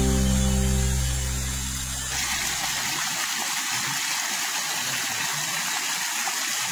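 The last notes of plucked-string folk music die away over the first two seconds or so, leaving a small stream running steadily down a short rocky waterfall.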